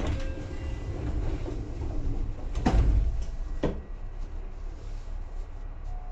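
Seibu 2000 series electric train running, heard inside the car: a steady low rumble with sharp mechanical clunks at the start and twice more, about a second apart, midway through.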